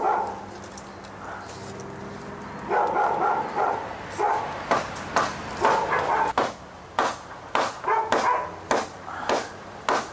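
A dog barking repeatedly, short barks about two a second from about three seconds in.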